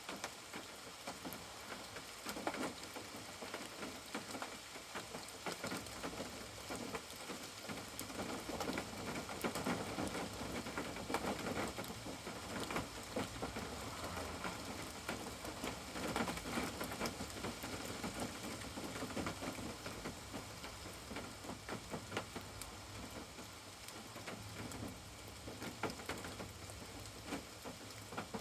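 Steady rain falling, with a constant hiss and many individual drops ticking sharply on a nearby surface.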